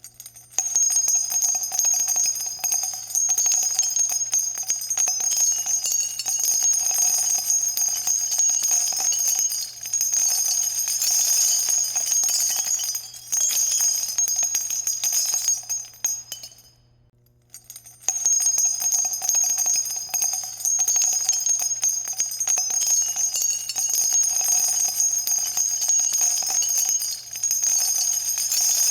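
Spent .50-calibre brass shell casings falling and clinking together in a continuous ringing metallic jingle. It comes in two long runs with a break of about a second in the middle.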